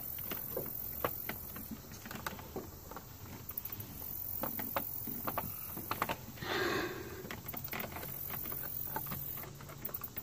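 Plastic engine fuse box being pressed down onto its base by hand: scattered small plastic clicks and taps as the latch is pushed to snap into place, with a longer scraping rustle about six seconds in.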